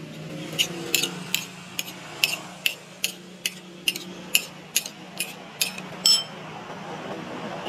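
A metal spoon beating raw eggs in a bowl, clinking against the bowl's side in a steady rhythm of about two and a half strikes a second, with a slosh of egg between strikes. The clinking stops about six seconds in.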